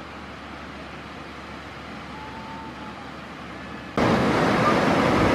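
Steady wash of breaking ocean surf, faint at first and then much louder from about four seconds in.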